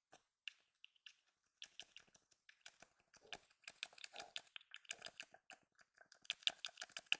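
Close-miked chapstick tube being handled and twisted, a dense run of small rapid clicks and crackles that grows busier near the end.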